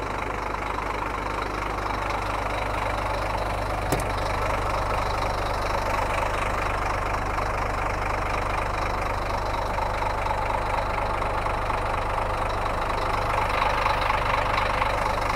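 Scania P340 truck's nine-litre five-cylinder diesel idling steadily and evenly, running smoothly. A single short click about four seconds in.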